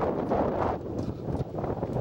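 Strong wind buffeting the microphone in uneven gusts, a rough low rumble.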